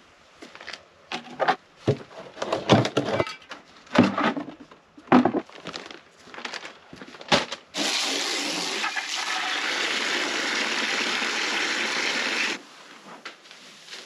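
Irregular knocks, clatters and scrapes for about seven seconds, then a steady rush of water for about five seconds that stops suddenly.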